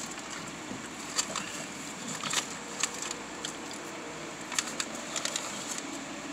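Paper food wrapper crinkling and crackling in short, scattered bursts as pieces of fried chicken are handled, over a steady background noise.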